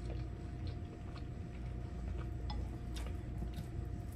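A person chewing a mouthful of food, with faint, irregular small clicks over a steady low hum.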